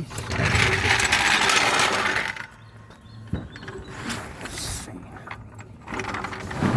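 Transmission jack being worked under a transmission: mechanical rattling and clattering for a couple of seconds, a sharp click midway, then more rattling near the end.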